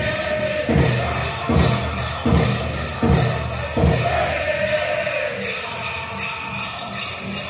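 Powwow drum group singing in high voices whose line falls in pitch, over a large drum beaten in steady time. Five heavier, accented drum strikes land about three-quarters of a second apart between about one and four seconds in.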